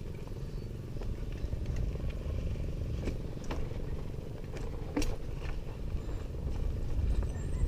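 Mountain bike rolling over a rough dirt trail, with wind rumbling on the microphone and a few sharp knocks and clicks from the bike over bumps, the clearest about five seconds in.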